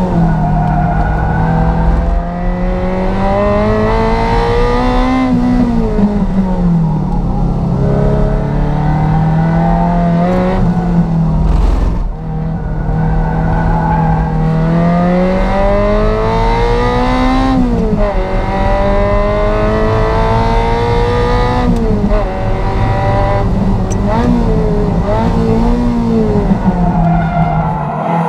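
Ferrari 348 Challenge's V8 engine being driven hard on track, its pitch climbing as it revs up and dropping at each gear change or lift, over and over.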